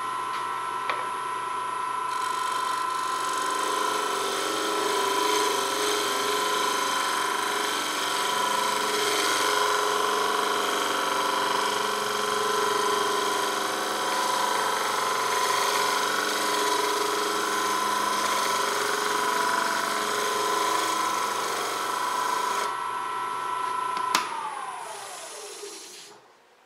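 Wood lathe motor running with a steady whine while a freshly sharpened bowl gouge cuts a very dry elm bowl, the cut a dense hiss from about two seconds in until a few seconds before the end. Near the end a click comes and the motor whine falls away as the lathe spins down.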